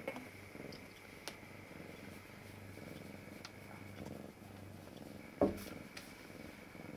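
A domestic cat purring softly while being stroked, a faint low pulsing rumble. About five and a half seconds in there is one short, louder sound.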